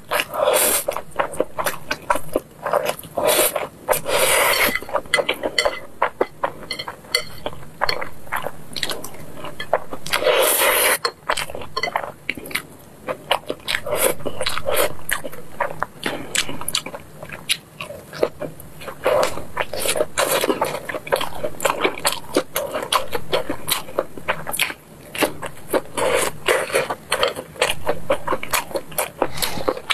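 Close-miked eating of spicy fire noodles: several long hissing slurps of noodles, with wet chewing and lip smacks between them.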